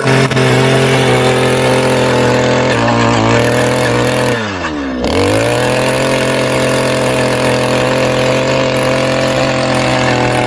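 Small petrol engine of a handheld earth auger running at high speed while its spiral bit bores into soil. About four to five seconds in, the engine speed sags and picks back up, then runs steadily again.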